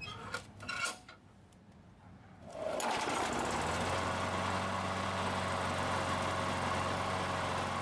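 Briggs & Stratton 158cc single-cylinder mower engine starting about two and a half seconds in, after a couple of short clicks, and then running steadily. This is the engine revived after five years dead.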